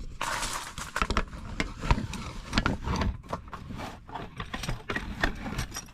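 A spoon clicking and scraping against a bowl in quick, irregular strokes as gochujang is added to bibimbap, busiest in the first half.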